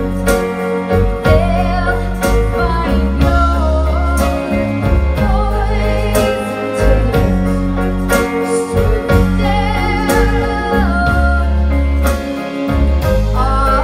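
Live band playing a song: a woman singing over strummed acoustic guitar, electric guitar, electric keyboard with an organ-like tone, and drums.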